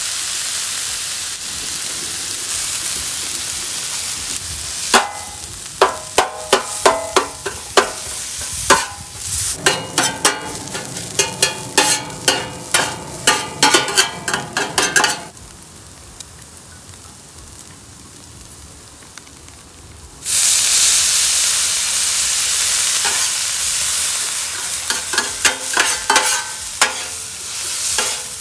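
Cubed pumpkin-seed tofu and onions sizzling on a hot flat-top griddle, with two metal spatulas repeatedly striking and scraping the griddle as they chop and toss the food. The sizzle drops away for several seconds in the middle, then comes back loud with more spatula strikes near the end.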